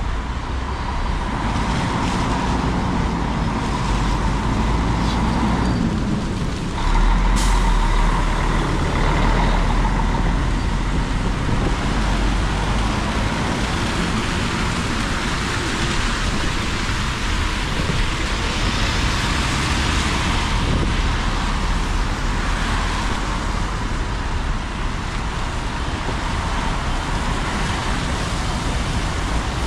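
Buses and traffic on a rain-wet city street: a steady low engine rumble and tyres hissing on the wet road. A short, sharp hiss comes about seven seconds in, and the engine rumble grows louder just then. Bus passes bring the hiss up in swells.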